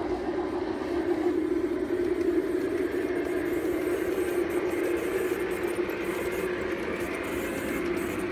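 Large-scale garden-railway model train running along outdoor track, giving a steady hum with a noisy rolling wash from its motor and wheels.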